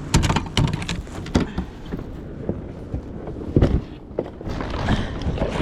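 Irregular knocks, clicks and several heavier thumps from a fishing kayak and its paddle being handled as the boat comes ashore.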